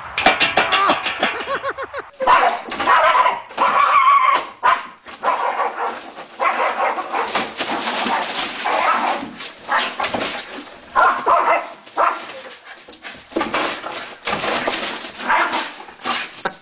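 A small dog barking repeatedly in short yaps, mixed with whimpering yips.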